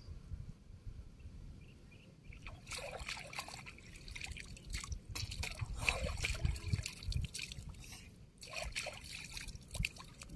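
Shallow water splashing and trickling in irregular spells as a wading fisherman swishes his hand and fishing line through it, starting about two and a half seconds in. A low rumble sits underneath.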